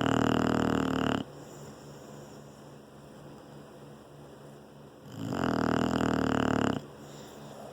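English bulldog snoring in its sleep: two loud snores, one at the start and one about five seconds in, each lasting about a second and a half, with quiet breathing between.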